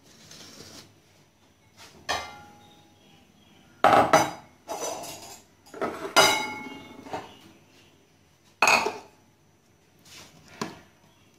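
Kitchenware being handled: the food processor's plastic bowl and white ceramic bowls knocked and set down, giving about five separate clinks and knocks, some with a short ring.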